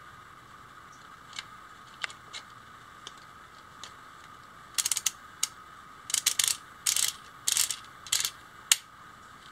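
3D-printed plastic ratchet and gear of a wind-up fan being handled and fitted together, with a few light clicks at first. From about five seconds in comes a run of short clicking rattles, roughly one every half second to second, as the gear is turned on the ratchet.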